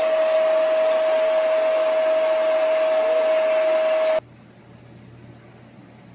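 Loud, steady whir of an electric appliance motor with a strong steady hum running through it. It cuts off abruptly about four seconds in, leaving only a faint low hum.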